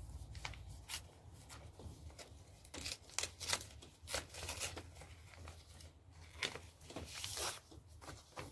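Thin plastic wrapping being picked at and torn open by hand: a string of short crackles and rustles, loudest about three seconds in and again about seven seconds in.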